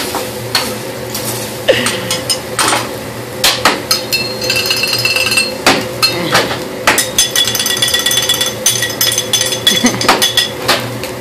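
Metal spatula and knife clacking and tapping on a teppanyaki griddle in a quick, uneven rhythm, some strokes ringing.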